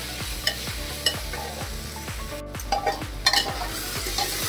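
Metal spatula stirring and scraping spiced chickpeas and potatoes frying in a pressure cooker, over a steady sizzle, with the odd clink of the spatula on the pot. The sound cuts out for an instant about halfway.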